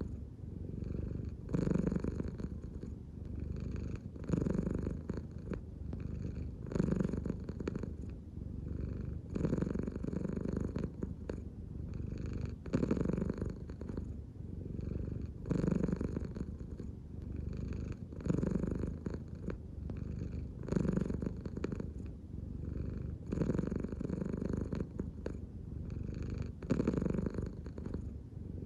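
American Shorthair cat purring steadily. The purr swells and eases with each breath, about every two and a half seconds.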